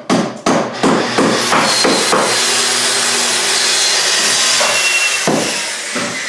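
Hammer blows on wood, about three a second, quickening until they run together into a steady din that fades near the end.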